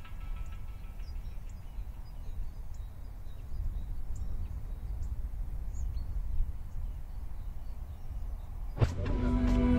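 Outdoor street ambience: a steady low rumble of background noise with faint, scattered high bird chirps.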